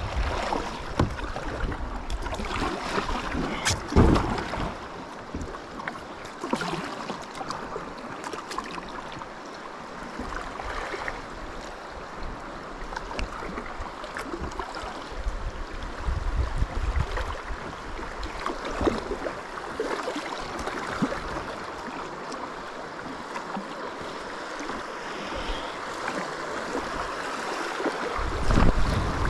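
Water sloshing and lapping around a kayak with gusts of wind rumbling on the microphone, and a single knock about four seconds in.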